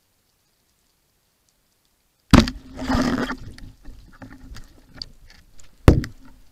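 Silent for about two seconds, then the underwater shot of a Matador 76 speargun: a sharp crack followed by about a second of rushing water. Smaller clicks and knocks follow, with a second sharp knock near the end, as the shaft and line are handled.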